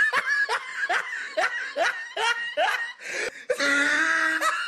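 Laughter: a run of short pitched 'ha' bursts, about three a second, then a long held vocal note near the end.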